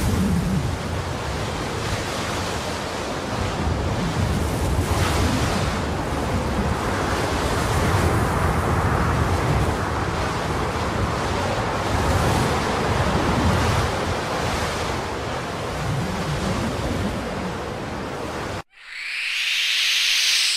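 A steady rushing roar of stormy wind and surf, swelling and easing slowly with low rumbles underneath, used as an eerie ambience effect. It cuts off abruptly near the end, and a short hiss rises in loudness in its place.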